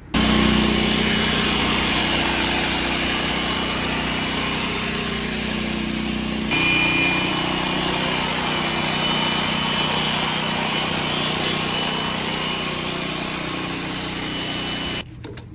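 Power grinder running steadily while grinding the epoxy-coated concrete floor to prepare a patch area. Its tone shifts slightly about six and a half seconds in.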